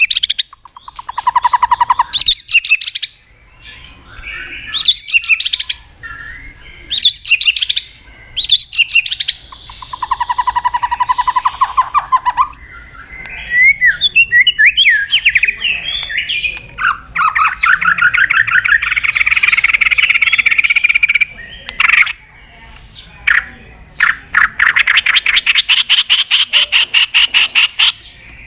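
White-rumped shama (murai batu) singing loudly: varied short phrases with pauses, a lower rolling trill, and two long fast rattling runs of rapidly repeated notes.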